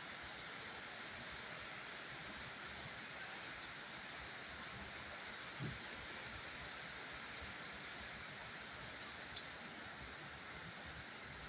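Steady rain falling, a faint even hiss, with a soft low thump a little past halfway and two small ticks near the end.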